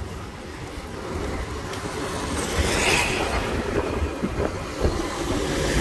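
Wind buffeting the microphone over the sound of road traffic going by, louder from about halfway through.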